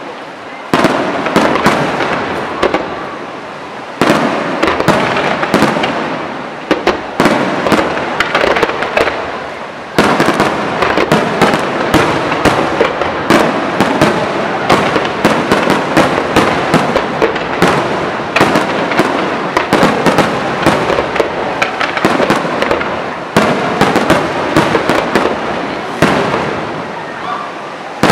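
Fireworks display: a rapid, almost unbroken barrage of shell bursts and crackling, with a fresh heavy salvo every few seconds that then fades off.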